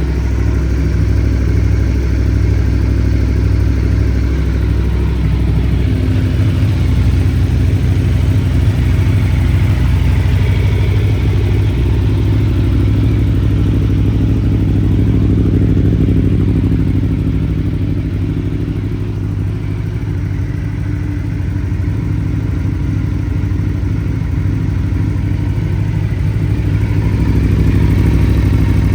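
Aprilia Tuono V4 1100's V4 engine running steadily at idle through a carbon Akrapovic exhaust with titanium link pipe. The note shifts slightly about six seconds in and swells a little near the end.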